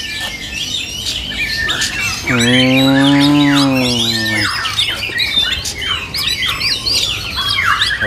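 Caged oriental magpie-robins (kacer), black-breasted and white-breasted, singing against each other in competition: a dense stream of quick, varied chirps and whistled notes. A single long, low, drawn-out voice-like call rises over them about two seconds in and lasts about two seconds.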